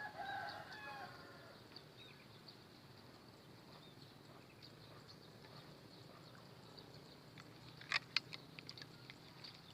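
A rooster crowing once, a pitched drawn-out call in the first second and a half. Near the end come a few sharp clicks.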